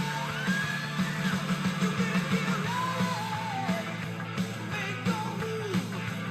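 Music with a singing voice over a steady, pulsing beat.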